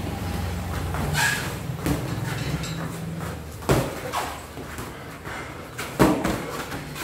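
Boxing gloves landing punches in sparring: several sharp slapping thuds at irregular intervals, the loudest about halfway through and near the end.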